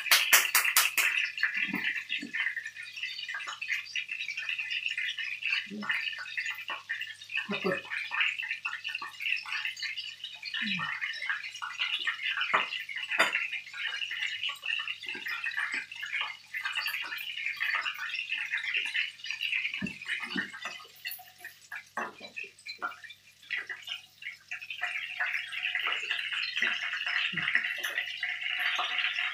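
Minced pork and shrimp patties sizzling and crackling in hot oil in a frying pan, with many small pops. The sizzle dies down for a few seconds past the middle and picks up again near the end.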